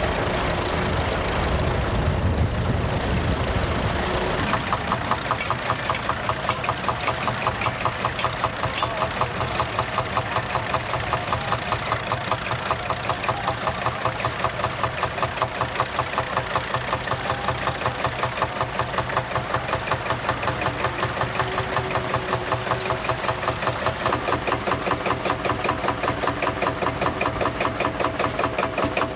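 A vintage engine running slowly at idle with an even, rapid beat, after a heavier low engine rumble fades out about four seconds in.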